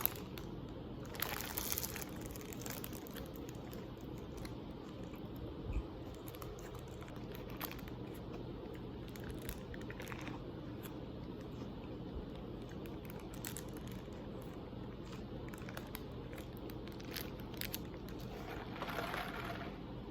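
Scattered soft crunching and crinkling of food being handled and eaten, over a steady low hum, with busier stretches about a second in and near the end.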